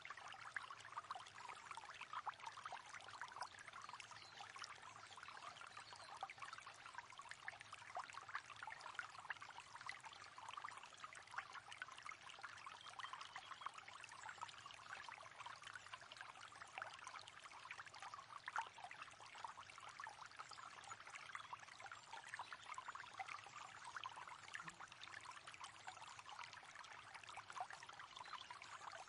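River water flowing steadily, a continuous fine rushing and splashing.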